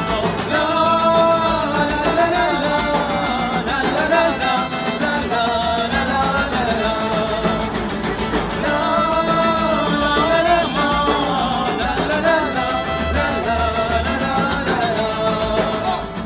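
Live folk music from a small street band: a woman singing a melody over violin, strummed acoustic guitar and a steady beat on a large hand-struck frame drum.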